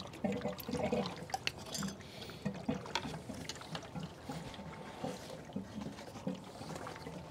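Faint, scattered clicks and scrapes of a screwdriver and hands working on a pool pump motor as its ground wire is unfastened. The clicks come thickest in the first couple of seconds, then thin out to light handling noise.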